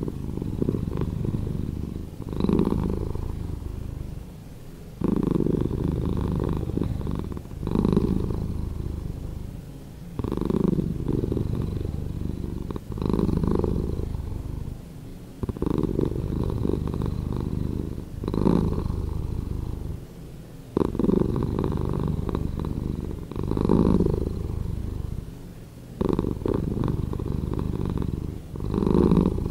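Domestic cat purring, the recording slowed down, a low rumble that swells and fades in even cycles about every two and a half seconds.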